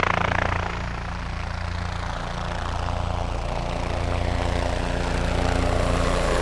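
Sikorsky S-55T helicopter running, its rotor beating rapidly over a steady engine drone that slowly grows louder.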